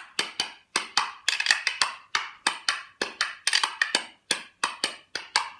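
Pair of hand-carved maple wood spoons played as a percussion instrument: quick, sharp wooden clacks in a steady, lively rhythm of about five strikes a second.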